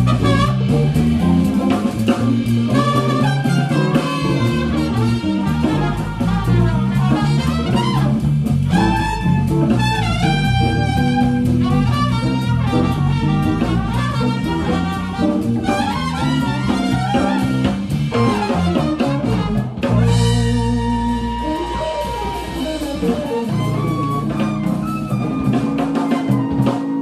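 Live small jazz group playing, with archtop guitar strumming and trumpet. About twenty seconds in, the playing changes to long held notes.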